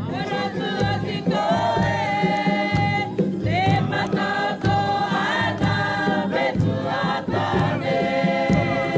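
A group of voices singing together in a choir, holding long notes that glide from one pitch to the next, over a steady low hum.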